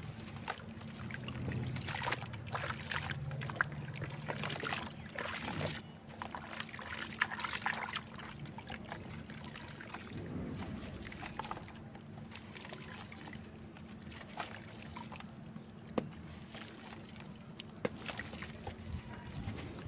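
Wet lumps of red dirt and cement squeezed and crumbled by hand in a plastic basin of muddy water: gritty crumbling with water dripping, trickling and sloshing. The squelching and splashing come in irregular bursts, thickest during the first several seconds.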